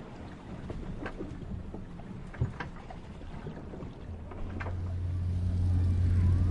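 Small clicks and knocks of boats and gear against the dock over moving water, with one sharper knock about two and a half seconds in. From about four seconds in, a boat's engine hums low and steady and grows louder as it comes closer.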